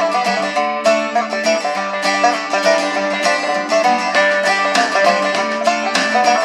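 Music from an FM broadcast station received at 92.90 MHz, played through the speaker of a 1991 Realistic DX-380 portable radio: a quick run of plucked notes with a thin sound and no deep bass.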